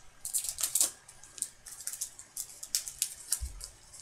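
Hockey trading cards being flipped through by hand, the card stock sliding and snapping with crisp clicks and rustles. A dense flurry comes in the first second, then scattered ticks, with a dull bump about three and a half seconds in.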